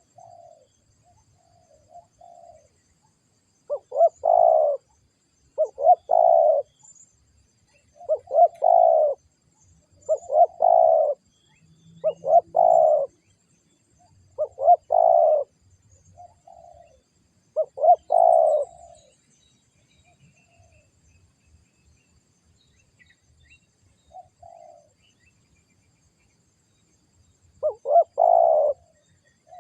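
Spotted doves (tekukur) cooing: loud, repeated multi-note coo phrases about every two seconds, with fainter coos in between, a pause of several seconds, and the loud cooing starting again near the end.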